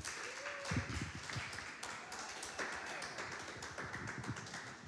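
Congregation applauding, many hands clapping.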